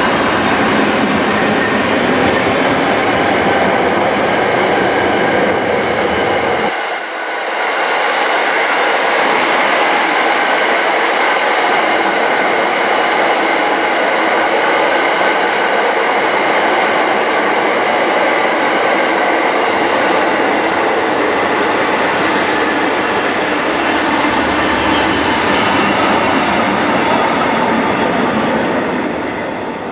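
A long train of yellow track-maintenance hopper wagons rolling past close by: steady, loud wheel-on-rail running noise. The deep rumble drops away about seven seconds in, and the noise fades at the very end as the last wagons clear.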